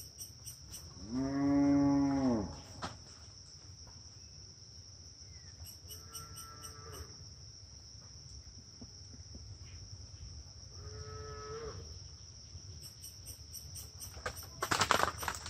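A cow mooing once, a long low call that rises and falls, followed twice by fainter, higher calls. A steady high insect drone runs underneath, and a short burst of crackling comes near the end.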